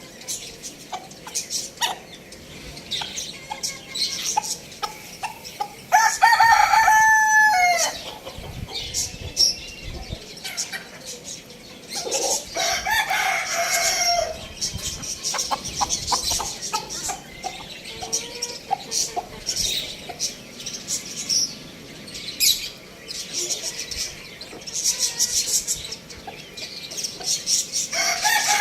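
Chickens: a rooster crows loudly about six seconds in, again around twelve seconds and once more near the end, with hens clucking and short chirping calls throughout.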